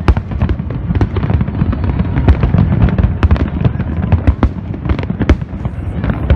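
Fireworks display: a rapid, irregular barrage of aerial shell bursts, many sharp cracks and bangs overlapping over a continuous low rumble.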